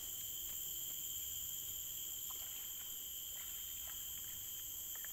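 Steady chorus of insects from the forest, a shrill drone held at several high pitches, with a few faint ticks.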